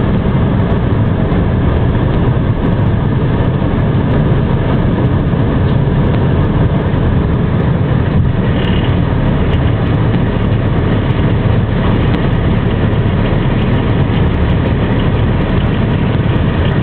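Heavy vehicle engine idling steadily under a constant rush of dust-storm wind.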